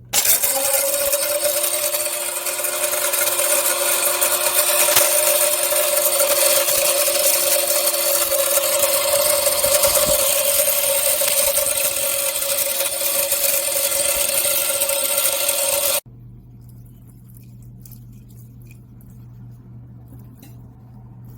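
Small electric powder grinder running at high speed, grinding chunks of donkey-hide gelatin: a loud, steady whir that spins up at the start and cuts off suddenly about 16 seconds in.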